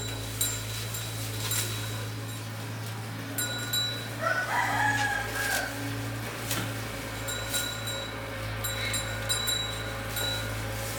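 A rooster crows once, about four seconds in, over a steady low hum with faint clicks.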